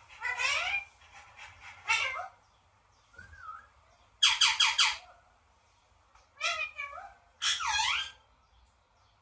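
Pet parrot giving a series of short, pitched calls, some gliding up and down in pitch, with the loudest a quick four-note squawk about four seconds in.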